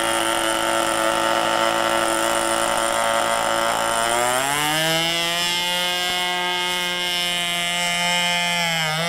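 Sportster 25 RC airplane's model engine running steadily at low throttle, then opened up about four seconds in, its pitch rising over a second or so to full throttle and holding there.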